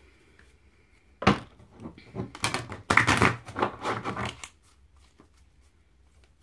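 A deck of oracle cards handled and shuffled by hand: a sharp tap about a second in, then about two seconds of rapid flicking and rustling of cards against each other, which stops past the middle.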